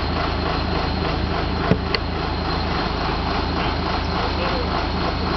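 Auger drill rig's engine running steadily, with two short sharp clicks close together about two seconds in.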